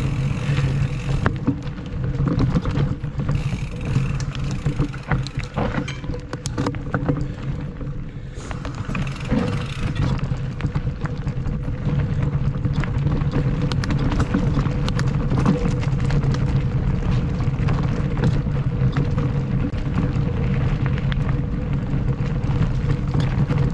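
Mountain bike rolling along a dirt singletrack: a steady rolling rush of the tyres over the ground, with sharp clicks and knocks from the bike rattling over roots and rocks, most frequent a quarter of the way through.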